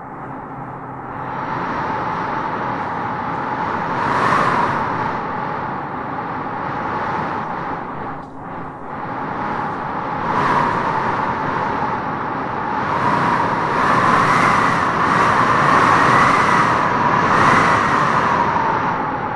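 Wind blowing in gusts, with a wavering, whistling howl that rises and falls and is strongest in the second half.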